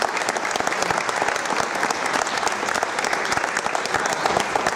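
Applause from the team and crowd: many people clapping at once, a steady dense patter of hand claps.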